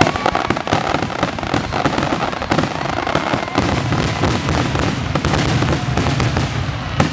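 Grand-finale barrage of aerial fireworks shells: a dense, unbroken run of overlapping bangs and crackles, many reports a second.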